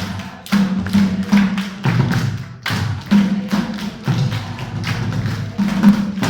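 A group of voices chanting a rhythmic refrain, kept in time with sharp hand claps and thumps about two to three times a second.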